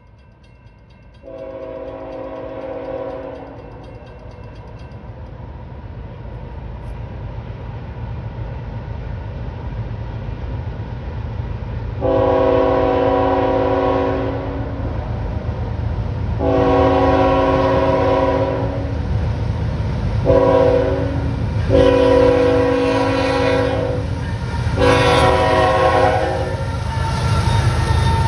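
Approaching train's locomotive horn sounding for a grade crossing: one long blast about a second in, then the long, long, short, long crossing signal from about twelve seconds in, and another long blast near the end. Under the horn, the train's rumble grows steadily louder as it nears the crossing.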